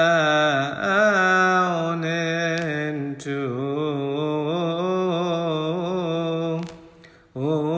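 A Coptic Orthodox hymn chanted in long, wavering melismatic phrases over a steady low drone. The voice drops away briefly near the end, then comes back in.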